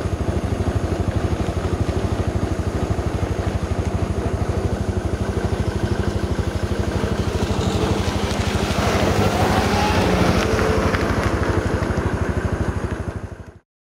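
Vehicle engine running with a rapid, even pulsing, heard while travelling along a road; it fades out near the end.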